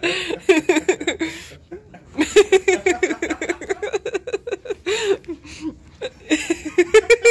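A person laughing in quick giggling runs, with two short pauses.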